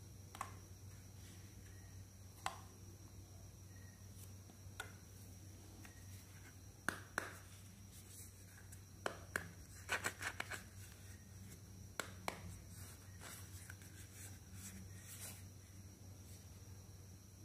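Hard plastic doll accessories being picked up and handled, giving scattered light clicks and taps, with a quick cluster of clicks about ten seconds in. A faint steady hum lies underneath.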